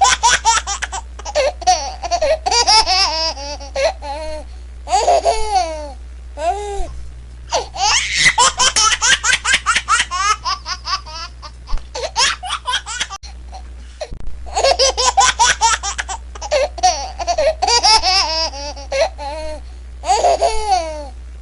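A baby laughing in fits of quick, high, bubbling giggles and belly laughs, broken by short pauses for breath, over a steady low hum.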